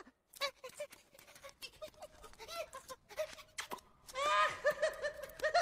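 Animated sabre-toothed squirrel's squeaks and chattering: many short rising-and-falling squeaks, with scattered clicks and taps between them. The squeaks turn into a fast, louder string about four seconds in.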